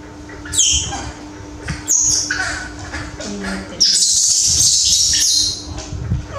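Baby monkey screaming in distress: two short shrill cries falling in pitch about half a second and two seconds in, then a long, loud, high screech from about four seconds to five and a half.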